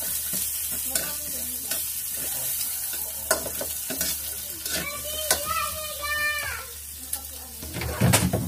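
Onion, garlic and chicken sautéing in a metal wok, sizzling steadily while a metal spatula stirs them, scraping and clicking against the pan. A louder knock comes near the end.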